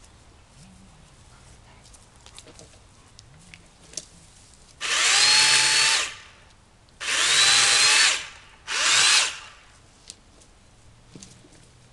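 Remington Ranger electric chainsaw running in three short bursts, the last one shortest, each with a steady motor whine, cutting small limbs of a fallen tree.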